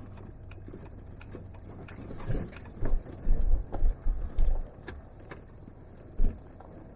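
A vehicle heard from inside the cab, with a steady low road and engine drone. Around the middle come a run of heavy low thumps and rattles, as when the vehicle jolts over bumps onto a rough road, and one more thump follows near the end.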